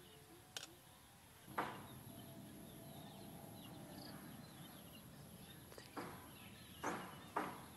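A few sharp, short knocks or taps over a faint outdoor background, coming closer together near the end.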